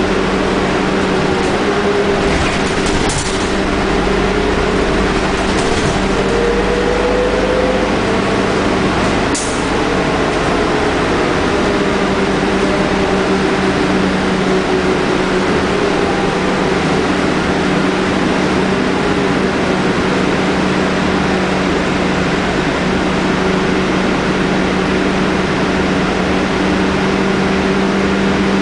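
Scania K310UD double-decker bus on the move, heard from inside the passenger saloon: its Scania DC9 diesel engine and ZF Ecomat automatic gearbox hum steadily, with a brief rise in pitch about seven seconds in. A few sharp rattles sound in the first ten seconds.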